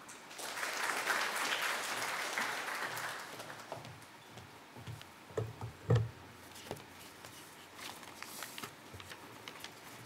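Audience applauding for about three seconds, then dying away, followed by a couple of sharp thumps and a few faint clicks about halfway through.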